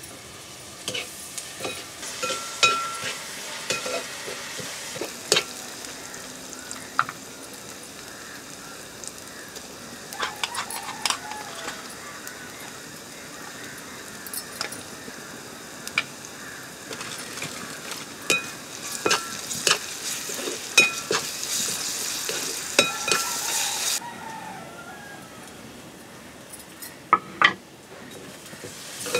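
Sliced onions sizzling as they fry in oil in a wide metal pan, with a metal spoon knocking and scraping against the pan as they are stirred. The sizzle drops away near the end while the spoon clinks go on.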